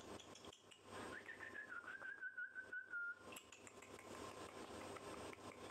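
Four-week-old rough collie puppy whining: one thin, high whine starting about a second in and lasting about two seconds, wavering slightly as it slides down in pitch.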